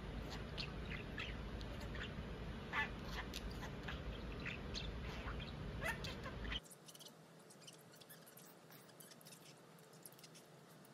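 Budgerigar chirping: short, high chirps scattered irregularly, a few a second. About two-thirds of the way in the background hum drops away suddenly and the chirps turn faint.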